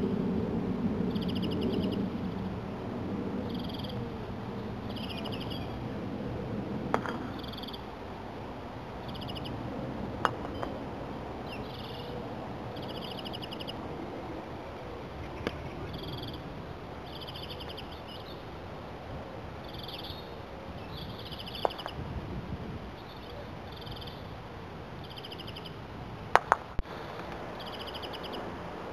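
Sharp knocks of a croquet mallet striking balls: single knocks every few seconds, then a quick run of three knocks near the end. Underneath, a bird gives short, high rattling calls about once a second, with a low rumble fading over the first few seconds.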